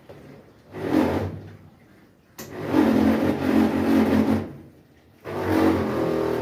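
Water inlet valve of a Brastemp BWH15 washing machine letting water in noisily in three bursts: briefly about a second in, longer from about two and a half to four and a half seconds, and again from just past five seconds on. The noise comes from a fault in the valve mechanism, whose piston moves up and down under the water pressure and also lets water in with the lid open.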